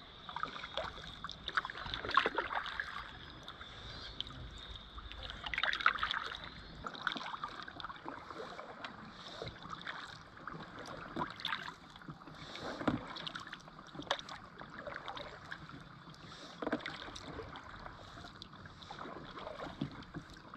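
Kayak paddle strokes in calm river water: a swish and splash every few seconds, with dripping between strokes.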